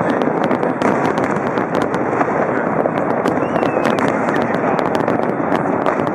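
Fireworks display going off in a dense, continuous barrage: many sharp cracks and bangs over a steady rumbling crackle, with no pause.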